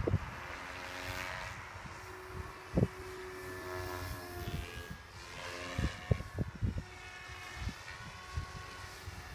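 SAB Goblin 420 electric radio-controlled helicopter in flight: the whine of its motor and rotor shifts up and down in pitch as it flies about. Several short low thumps on the microphone break in, the loudest about three and six seconds in.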